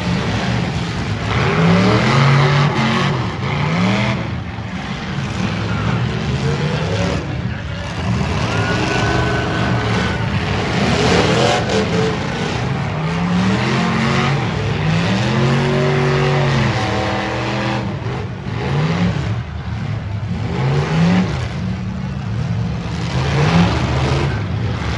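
Demolition derby cars' V8 engines revving hard, their pitch climbing and dropping again and again over a constant din.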